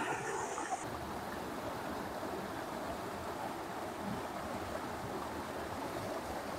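Shallow stream water rushing steadily over low rock ledges in a small cascade.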